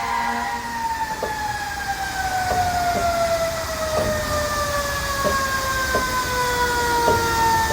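Fire engine siren winding down in one long, slowly falling wail, with faint clicks about once a second.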